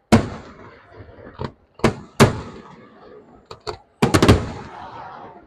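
Fireworks bursting: a string of sharp bangs, each with an echoing tail. The loudest come just after the start and a little after two seconds, and a quick cluster of cracks follows about four seconds in.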